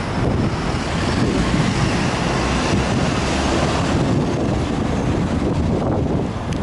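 Steady road traffic passing on a multi-lane city street, mixed with wind buffeting the microphone.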